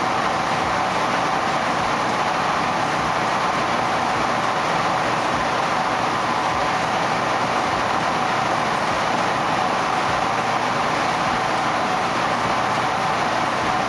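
Washing machines running in a laundry room: a loud, steady, even mechanical noise that does not change.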